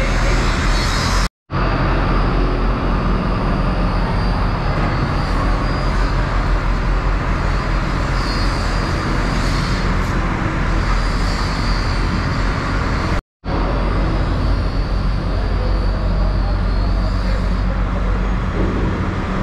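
Steady low engine hum with a constant wash of background noise, like idling vehicles. The sound drops out completely for a split moment twice.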